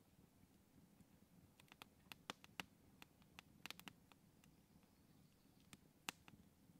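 Small wood campfire crackling faintly, with scattered sharp pops and snaps. They bunch together in the middle, and the loudest single pop comes near the end.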